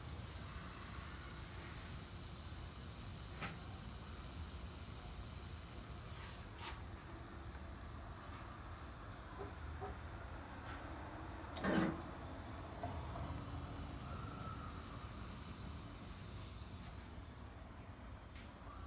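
Refrigerant gas hissing steadily from a loosely tightened flare nut at an air conditioner outdoor unit's service valve: a gas leak. A single sharp knock about twelve seconds in.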